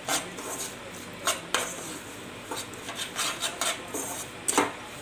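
Metal slotted spoon scraping around a nonstick saucepan, stirring lumpy sugar as it melts down to syrup without water, with several sharp clinks of the spoon against the pan.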